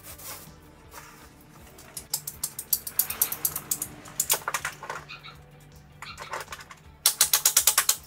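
Ratcheting PVC pipe cutter clicking rapidly as it is squeezed through a PVC pipe, in a long burst about two seconds in and a shorter one near the end.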